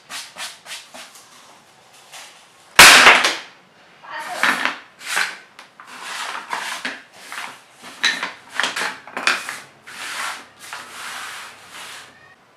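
Rhythmic rasping strokes on plywood, a little under two a second, as the wood is worked by hand. One loud sharp knock comes about three seconds in.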